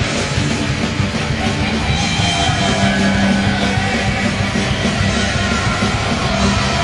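Loud rock goal song playing over a hockey arena's speakers, with yelling.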